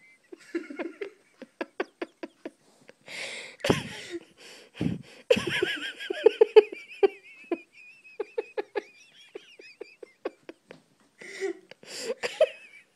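A person giggling softly in short breathy bursts, mixed with short snuffling pulses from an old miniature pinscher.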